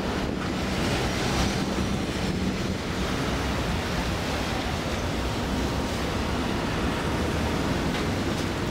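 Tatra T4R tram approaching and passing close, a steady rumble of wheels on the rails with a low hum through the first few seconds, mixed with wind noise on the microphone.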